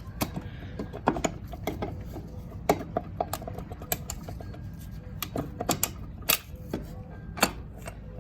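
Irregular metallic clicks and knocks of hand tools and loose metal parts being handled while the foot pegs and heel guards of a Yamaha Blaster are unbolted.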